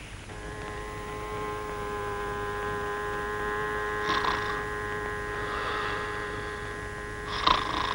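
Electric salon hood hair dryer running with a steady electrical hum. A short noisy burst comes about four seconds in and a louder one near the end.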